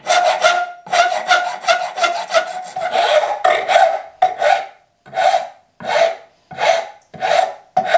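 Hand wood file rasping the shoulder of a wooden axe handle down to fit the head's eye, in quick strokes at first and then steadier strokes about one every 0.7 s, each with a ringing note.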